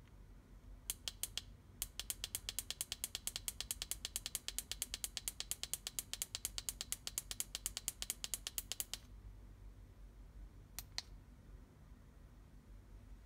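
Handheld remote control's buttons clicking under a thumb: a few single clicks, then a fast, even run of about seven clicks a second for about seven seconds, stepping the LED pool light through its settings, and a couple more clicks near the end.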